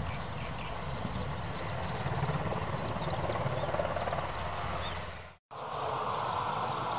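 SH-60K helicopter hovering, its rotor making a fast low pulsing over the steady run of its turboshaft engines, with birds chirping over it. After a sudden cut about five seconds in, an F-2B fighter's single jet engine runs with a strong steady sound as the jet rolls on the runway.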